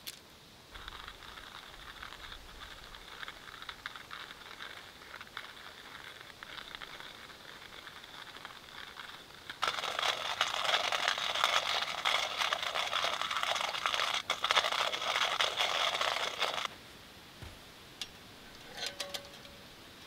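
Hand-cranked stainless steel burr coffee grinder grinding coffee beans: a steady gritty crunching that gets much louder about ten seconds in and stops about seven seconds later. A few light clicks follow near the end.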